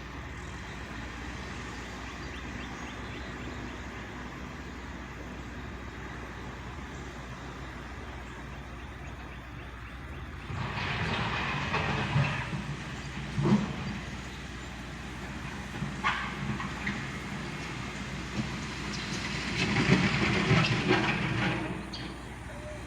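Backhoe's diesel engine running steadily, then working harder in two louder spells with gravel scraping and clanking, and a sharp metal knock in between.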